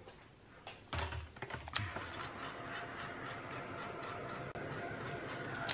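Handheld craft heat tool switched on about a second in and running steadily, its fan blowing with a faint whine, drying freshly sprayed ink on paper.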